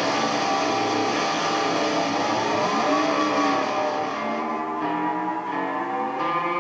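Electric guitar played through a Moogerfooger MF-102 ring modulator pedal, a dense, metallic ring-modulated tone with pitches gliding up and down in the middle.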